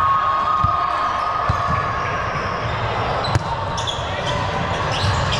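Ball-game sounds on a hard gym floor: repeated ball thuds and bounces, one sharp smack about three seconds in, and short high shoe squeaks near the end.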